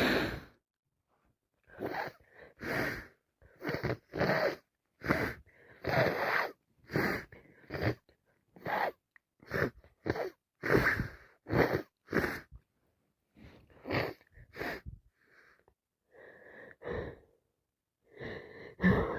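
A person with a heavy, snotty head cold sniffling and breathing hard through a congested nose. About twenty short noisy sniffs and gasps come one after another at roughly one a second, and grow fainter and sparser near the end.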